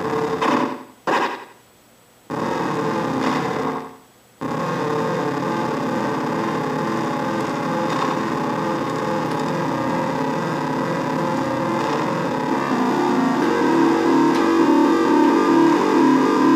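Circuit-bent keyboard putting out a harsh, noisy electronic drone of layered glitching tones. It cuts out abruptly twice in the first few seconds, then runs on steadily with scattered clicks.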